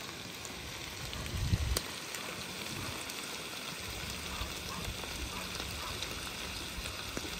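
A frying pan of octopus pieces and tomatoes sizzling steadily over the heat.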